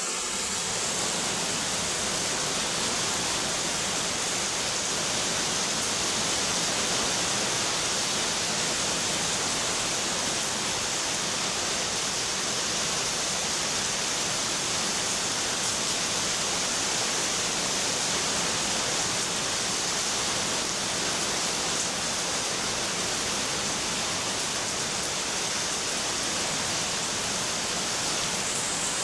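Rain falling steadily, a dense even hiss with no break or change.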